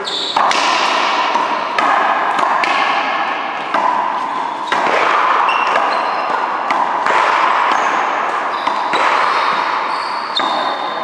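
One-wall racquetball rally: the ball cracking off racquets and smacking the wall and floor, about eight sharp hits at irregular intervals, each echoing in the large hall. Short high sneaker squeaks between the hits.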